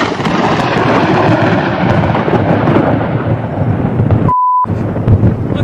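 Loud thunder from a very close lightning strike, a long rolling rumble. About four seconds in, a brief steady beep cuts in and blanks the thunder, and then the rumble goes on.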